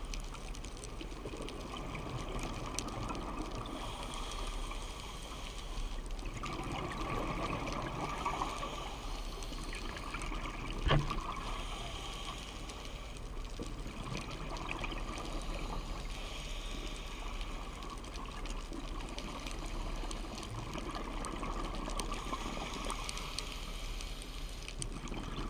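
Underwater ambient sound picked up through a diving camera's housing: a steady watery hiss with faint scattered crackling, and one sharp knock about eleven seconds in.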